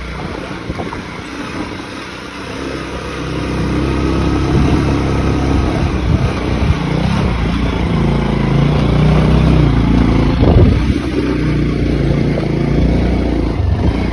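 Motorcycle engine running as the bike is ridden over a rough gravel road. It gets louder about four seconds in, and its pitch steps up and down as the rider works the throttle.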